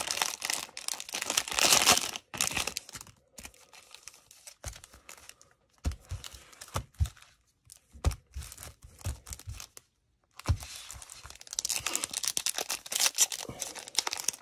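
Cellophane wrapper of a trading-card pack crinkling and tearing as it is ripped open by hand. Then a quieter stretch of scattered taps and shuffles as the cards are handled. Another wrapper crinkles loudly as the next pack is torn open in the last few seconds.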